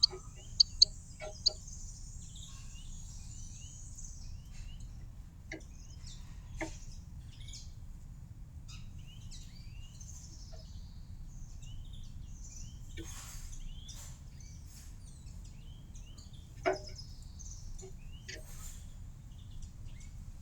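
Small songbirds at a garden feeder chirping and twittering in short high calls, with a few sharp taps, the loudest near the start and about three-quarters of the way through. A steady low background rumble runs underneath.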